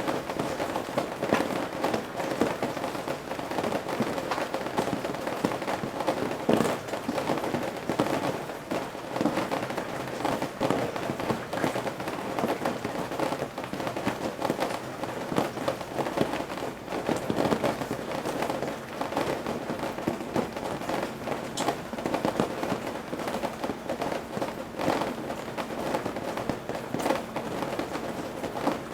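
Rain falling on the eaves: a dense, irregular patter of drops and drips tapping on the roof edge and the surfaces below, at an even level.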